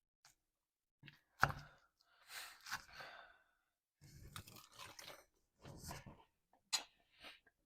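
A person chewing crunchy salad close to the microphone: irregular crunches and short chewing bursts, with a sharp crunch about a second and a half in and another near the end.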